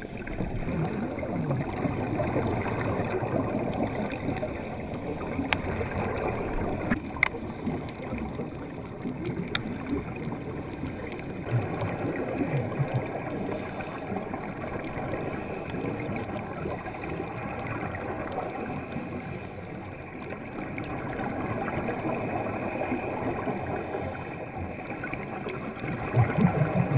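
Muffled underwater noise through a sealed camera housing: the gurgling rush of a scuba diver's exhaled bubbles from the regulator, swelling and fading in slow waves, with a few sharp clicks about five to seven seconds in.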